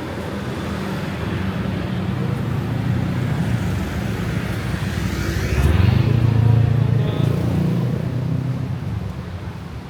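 Road traffic with a motor vehicle's engine passing close by. It builds to its loudest about six seconds in, then fades away.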